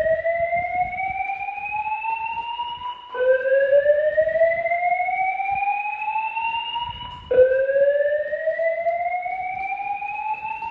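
A voice-evacuation fire alarm is sounding a slow whoop tone between its spoken messages, a loud rising sweep that repeats about every four seconds.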